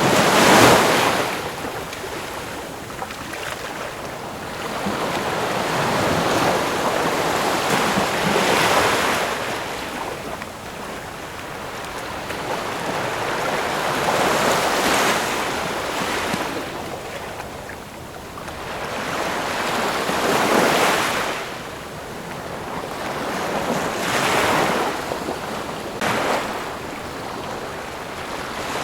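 Ocean waves breaking on the shore, one after another, each swelling up and washing back, with about five crashes roughly every four to six seconds and a constant wash of surf between them.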